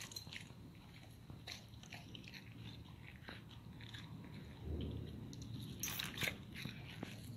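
Dog eating slices of bread topped with fried egg: irregular biting and crunching chews, with a cluster of louder crunches about six seconds in and a brief low rumble a little past the middle.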